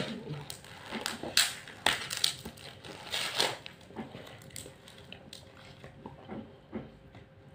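Thin plastic food packaging crinkling and crackling as it is pulled open and handled, with irregular crackles over the first three or four seconds, then only faint occasional rustles.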